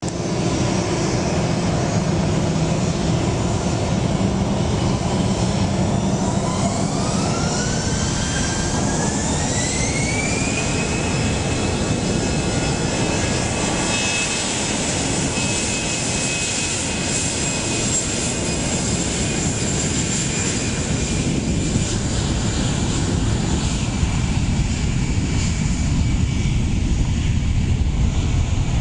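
Airbus A320's twin jet engines spooling up to takeoff thrust: a whine rises in pitch over several seconds, then holds steady over a continuous roar as the jet makes its takeoff roll. The whine fades near the end while the roar goes on.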